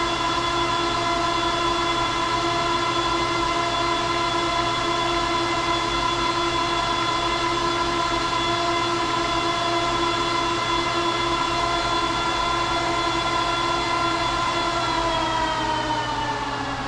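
Rack server's stock chassis fans running flat out with a steady, loud whine of several pitches. Near the end they spin down, the pitch falling as they settle toward idle speed.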